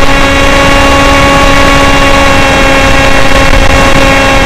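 Electric motor and propeller of a Sky Shadow S800 flying wing, heard from the onboard camera: a steady whine at constant pitch, showing a steady throttle in cruise, over rushing airflow noise.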